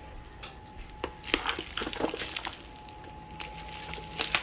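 Scattered light clicks and knocks, a few a second at most, with a faint thin steady tone that comes and goes in the background.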